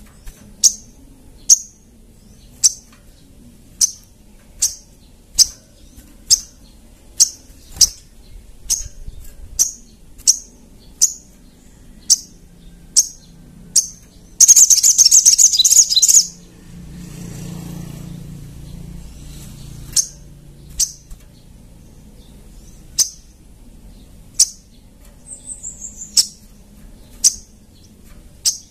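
Little spiderhunter (sogok ontong) calling: sharp, high single notes about once a second, broken around the middle by a loud rapid chattering burst of about two seconds, then sparser notes with a short quick run near the end.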